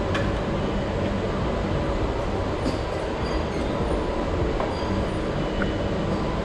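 Go-kart engines idling with a steady low rumble.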